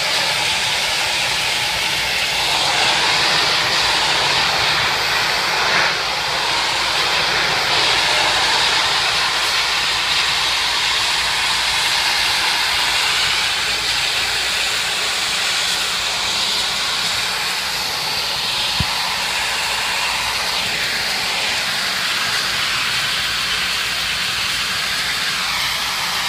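Pressure-washer wand blasting a jet of water onto a tile floor, a steady loud hiss of spray striking and splashing off the tiles.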